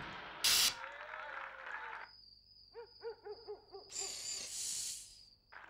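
Owl hooting sound effect: a quick run of about half a dozen short hoots over a steady high-pitched trill, with a short hissing burst about half a second in.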